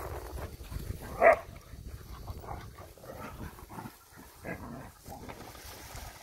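Border collies at play, with one short, loud bark about a second in and several softer dog vocalizations after it.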